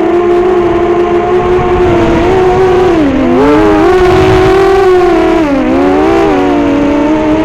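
FPV racing quadcopter's brushless motors (Racerstar BR2205 spinning 5-inch Dalprop props) whining steadily, heard from a camera mounted on the drone. The pitch dips and swings twice, about three and six seconds in, as the throttle is worked.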